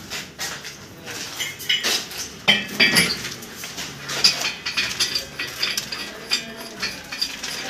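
Irregular metallic clinks and knocks as a core drilling rig, its motor and stand, is handled and positioned against a concrete ceiling beam; no steady drill motor sound.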